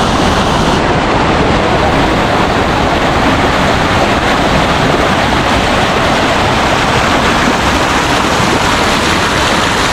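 Loud, steady rush of a waterfall running high with monsoon rain, heard close by.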